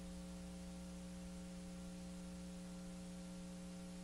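Faint, steady electrical hum, with no other sound.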